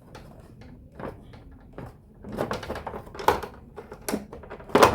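Irregular clicks, knocks and clatter from handling a reassembled Roland XPS-10 keyboard and its cables, busier after about two seconds, with the loudest knock near the end.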